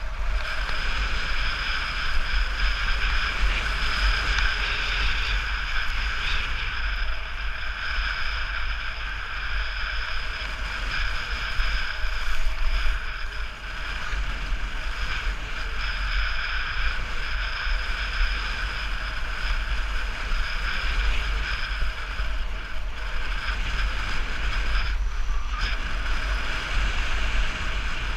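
Wind rushing over an action camera's microphone while sliding down a groomed ski run: a steady, loud rush with a low buffeting rumble, over the constant hiss of snow scraping underfoot.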